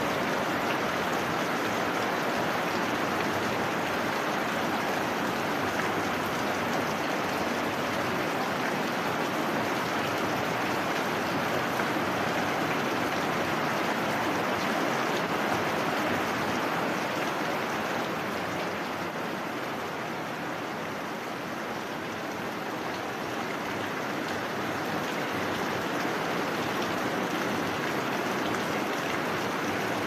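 Heavy rain falling in a steady, even hiss. It eases a little about twenty seconds in, then picks back up.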